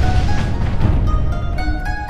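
Background music of short plucked-string notes over a heavy low rumble that dies away about halfway through.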